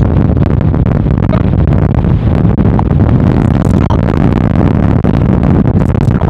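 Strong storm wind from Hurricane Sandy blowing hard across the microphone: a loud, steady low rumble.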